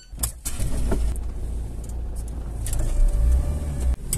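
A car running, heard from inside the cabin: a steady deep rumble of engine and road noise with several sharp knocks and rattles.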